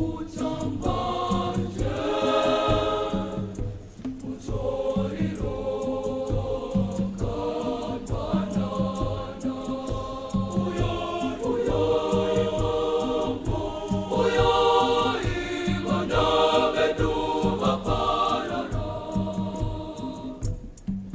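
Girls' choir singing a choral set piece in several-part harmony over a steady percussive beat. The voices fade down near the end.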